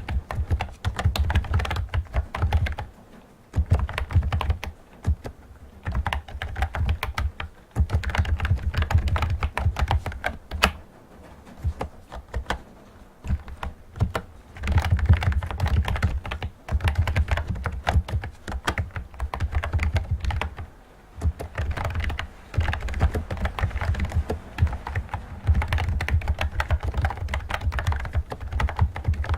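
Fast typing on a typewriter-style Bluetooth keyboard: dense runs of key clicks with a deep thud under each stroke, broken by short pauses every few seconds.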